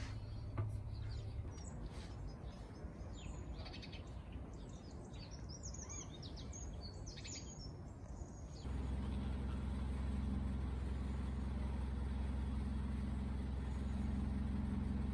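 Birds chirping for the first several seconds, then, about nine seconds in, the narrowboat's engine running steadily as the boat cruises along the canal.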